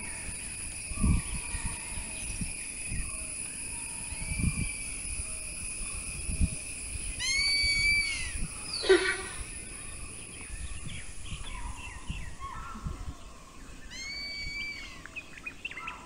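Outdoor rural ambience with wild birds calling: a run of short arched whistled notes midway, a falling sweep just after it, and another run of arched notes near the end. Under them is a steady high hiss with scattered low thumps.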